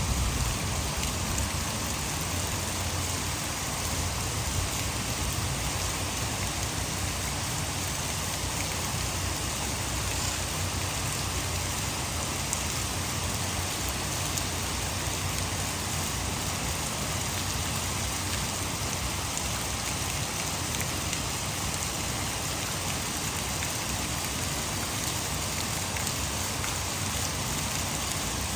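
Heavy rain pouring steadily, with scattered drop ticks, over a continuous low rush of water falling from a hydroelectric dam.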